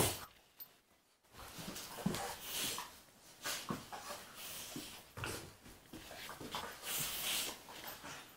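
A golden retriever and a black Labrador puppy play-fighting, with irregular bursts of breathy huffing and scuffling; the loudest burst comes right at the start.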